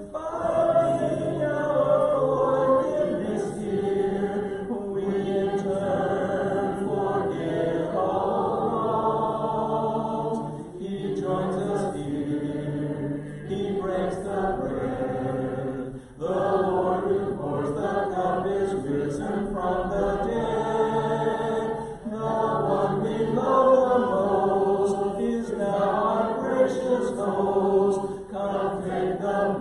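A congregation singing a hymn a cappella in several parts, men and women together, in long sung phrases with short breaths between them.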